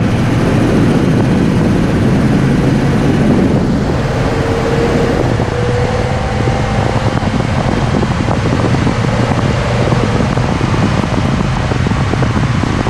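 A 1995 Ford Super Duty brush truck driving, heard from a camera on its hood: a loud, steady rush of wind and road noise over a low engine drone.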